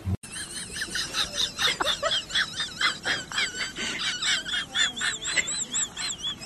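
Bird chirping: a quick, steady run of high warbling notes, several a second, with short chirps between them.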